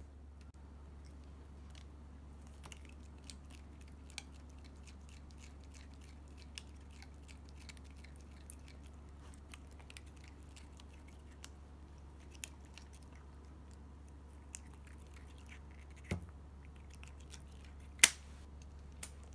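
Norwegian Forest Cat biting and chewing a cloth toy: a string of small sharp clicks and crunches, with a thump near the end followed by one much louder snap.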